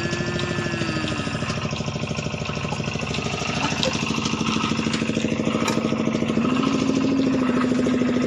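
A small engine running steadily with a rapid, even chugging beat.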